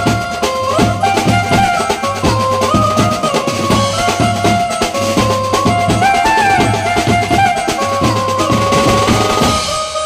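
A live percussion band plays fast, dense drumming on a set of steel tom drums, a bass drum and cymbals, under a lead melody that steps and slides between notes. Near the end the drums stop and the melody carries on alone.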